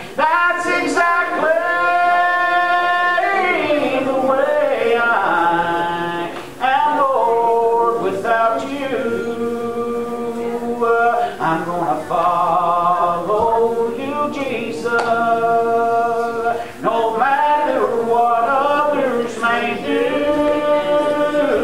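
Church congregation singing together, phrases of long held notes with slides between them.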